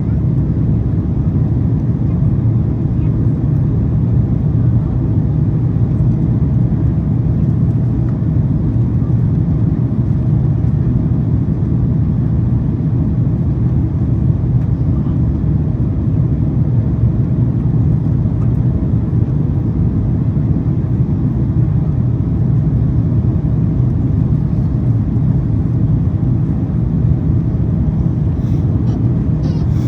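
Steady cabin noise of a Boeing 767-400ER airliner in flight: a constant low rush of airflow and engine drone that holds an even level throughout.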